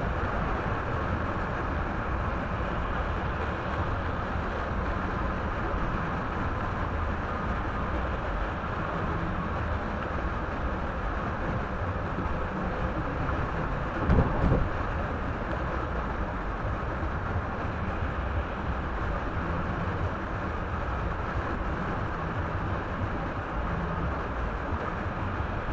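Steady road and tyre noise of a car driving at highway speed, heard inside the cabin through a dashcam's microphone. About halfway through come a few short, louder thumps close together.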